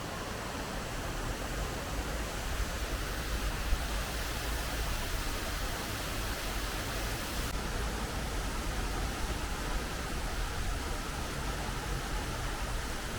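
Rain falling steadily: an even hiss, with a low rumble underneath.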